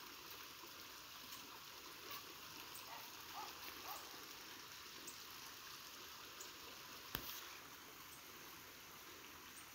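Faint outdoor ambience: a steady soft hiss with a few faint ticks and one sharp click about seven seconds in.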